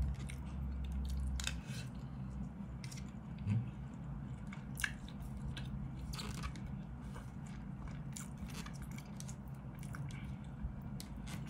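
Close eating sounds: a man chewing a mouthful of rice, ham and fried eggplant, with scattered short clicks and scrapes as a plastic fork and spoon work in a plastic food container.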